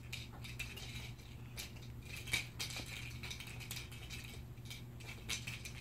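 Faint scattered clicks and light rattling of a cat toy being moved across the floor and batted at by a cat, with a slightly louder click a little over two seconds in.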